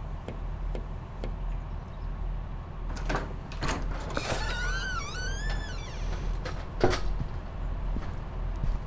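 A hinged door being unlatched and swung open: a few sharp clicks at about three seconds in, then a wavering hinge creak for almost two seconds, then a sharp knock, the loudest sound, near seven seconds. A low steady hum runs underneath.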